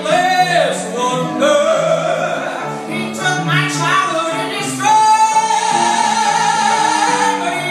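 A woman singing a swing arrangement of a show ballad with live band accompaniment, ending on a long held note from about five seconds in.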